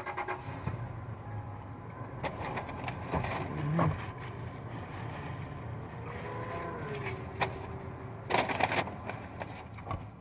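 Eating in a car's cabin: the sandwich's paper wrapper crinkles and handling noises click, over a steady low hum. The loudest burst of crinkling comes a little over eight seconds in.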